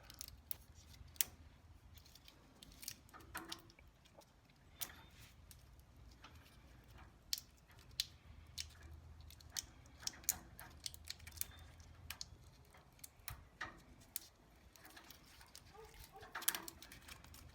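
Faint, scattered clicks and small scratching sounds of hands picking at electrical tape wrapped around vehicle wiring, unwrapping it to reach a buried Scotchlok connector.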